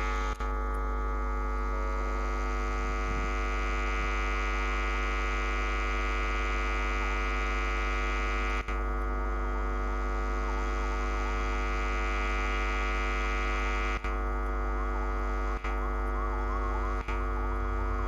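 WDP4D diesel locomotive's engine running with a steady drone of many held tones as it hauls the train in. The sound drops out for an instant a few times.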